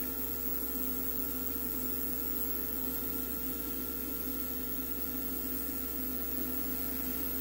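Spray-booth extractor fan running steadily: an even rush of air with a constant hum.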